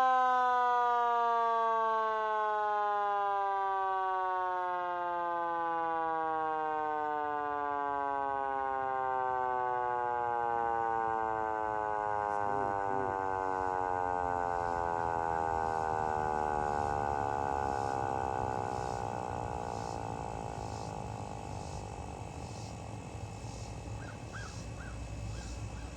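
Vixen Horns VXS-2000MTP hand-crank siren winding down: its wail glides steadily lower in pitch and fades out over about twenty seconds as the rotor slows.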